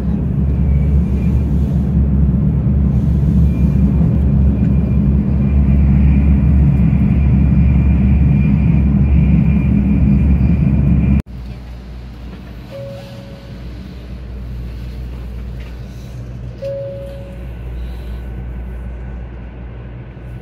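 Cabin noise of a 500 Series Shinkansen running at speed: a loud, steady low rumble with a faint high whine over it. About eleven seconds in it cuts off abruptly to a much quieter cabin hum, broken by three short, identical beeps about four seconds apart.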